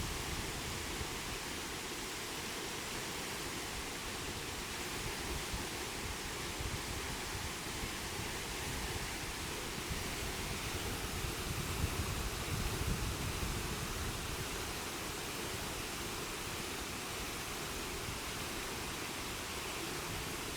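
Steady rush of water falling at the Lanka Ella waterfall.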